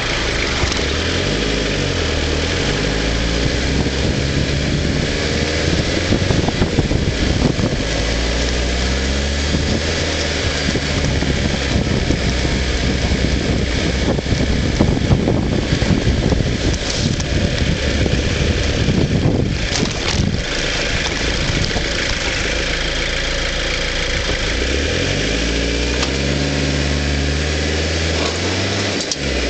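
Vauxhall Frontera 4x4's engine pulling along a rutted muddy track, its pitch rising as it revs up near the start and again near the end. Through the middle the vehicle knocks and jolts over the rough ground.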